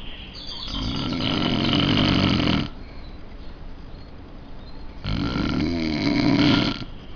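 A sleeping man snoring: two long, rasping snores of about two seconds each, one starting near the beginning and one past the middle, with quieter breathing between.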